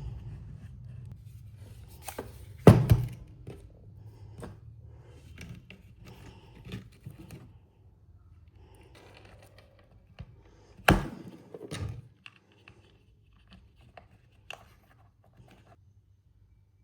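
Handling noises on a hard surface: two loud thunks, one about three seconds in and one about eleven seconds in, among scattered lighter clicks and rattles. A low motor rumble fades out at the start.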